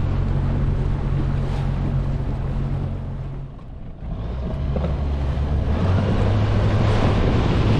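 Boat motor running with a low steady hum, with wind buffeting the microphone. About three and a half seconds in the sound drops away briefly, then comes back at a different pitch.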